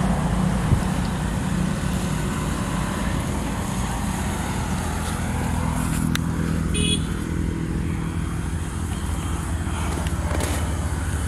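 A motor engine running steadily with a low hum, its pitch shifting slightly about halfway through.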